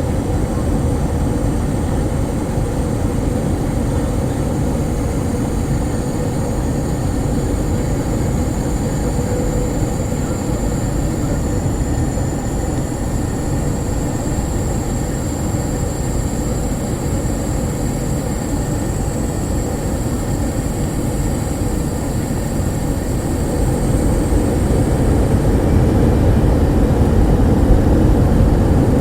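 Douglas DC-8 jet airliner heard inside the cabin: a steady low rumble of engines and airflow with a faint high whine above it, growing a little louder about three-quarters of the way through.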